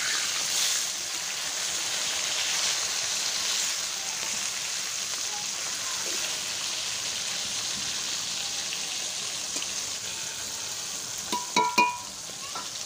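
Rohu fish pieces sizzling steadily as they fry in hot oil in a kadai, one side already browned and just turned over. Near the end a few sharp metallic clinks ring out as the metal spatula strikes the pan.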